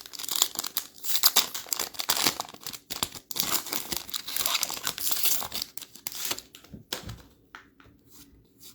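A trading card pack wrapper being torn open and crinkled, a dense crackling for about six and a half seconds, then a few faint light ticks near the end.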